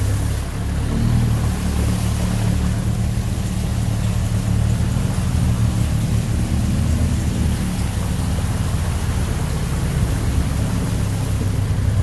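Mahindra Roxor's 2.5-litre turbodiesel engine running steadily at low speed while the vehicle wades through creek water, with a wash of water noise around it.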